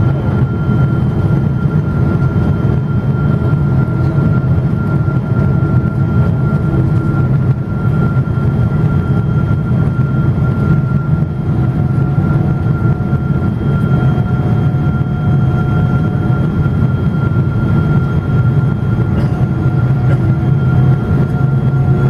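Cabin noise inside a Boeing 777-200 airliner descending on approach: a steady low drone from the twin engines and airflow, with a thin steady whine above it.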